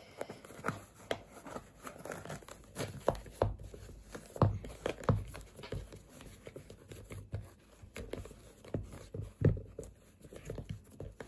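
Handling noise as a crocheted yarn sneaker is worked onto a hollow plastic mannequin foot: irregular rustling and rubbing of yarn against plastic, with light knocks, the strongest about four and a half seconds in and near the end.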